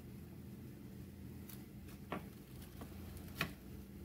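A few light clicks and taps of kitchen utensils, the two sharpest about two seconds and three and a half seconds in, over a steady low hum.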